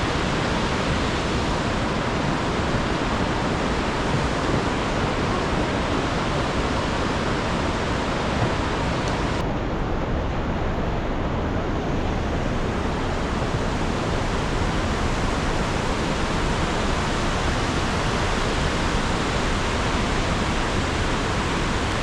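Rushing river water, a steady full-bodied rush that never lets up; its highest hiss thins out about nine seconds in.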